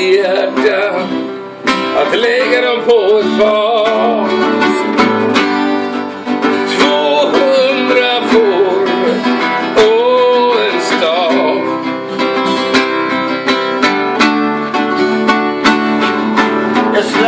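Acoustic guitar being strummed and picked, with a melody line that wavers in pitch and carries over the chords.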